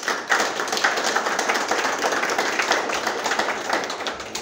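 A small group applauding, many hands clapping at once, dying away near the end.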